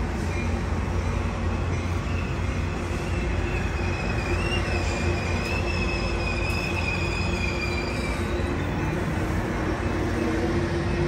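Sounder commuter train's bilevel coaches rolling past, a steady rumble of wheels on rail. From about two seconds in until about eight seconds, a high wavering wheel squeal rides over the rumble.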